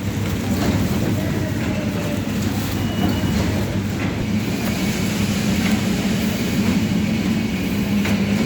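A machine running steadily, with a constant low hum under a rattling rumble and occasional clicks.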